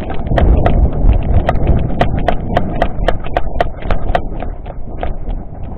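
Quick running footsteps, about three to four steps a second, over a low rumble of wind and handling on the microphone. The steps thin out after about four seconds.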